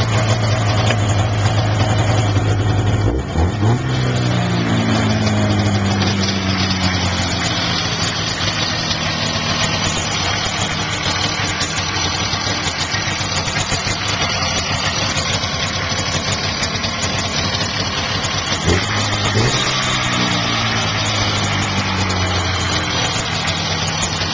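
1991 Polaris 500 liquid-cooled two-stroke twin snowmobile engine running steadily just after starting. It is revved briefly twice, a few seconds in and again past the middle, and each time the revs fall back down to idle.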